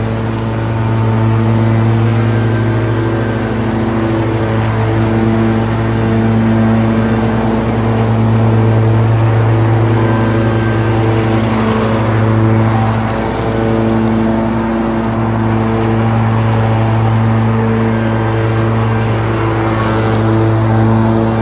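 Zero-turn riding mower's engine running steadily under load as it mows, its hum rising and falling slightly.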